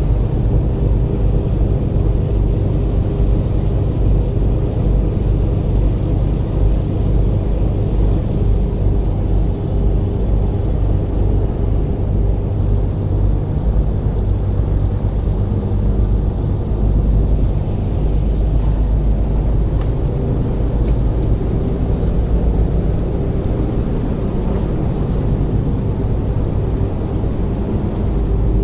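Ferry's diesel engines running steadily under way, a loud, constant low drone with a steady hum.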